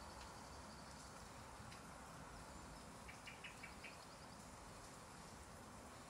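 Faint steady hiss of light rain, with a quick run of short bird chirps about three seconds in.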